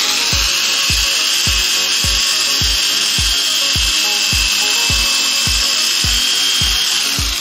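ALDO type 501 rotary polisher's 440 W electric motor running steadily with no load at its lowest speed setting, the wool bonnet spinning free and the trigger held on by the switch lock: a steady high whine. A steady background music beat thumps underneath.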